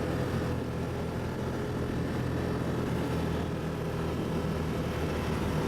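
ATV engine running steadily, a constant low hum with no change in speed.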